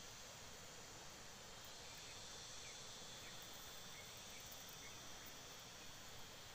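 Quiet outdoor ambience: a faint steady hiss with a thin, steady high drone of insects.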